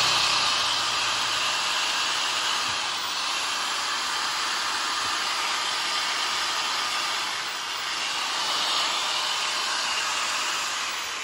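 Makita 9533B 100 V angle grinder running with no load at full speed, a steady high motor whine with fan hiss, easing off near the end as it is switched off. It runs very smoothly.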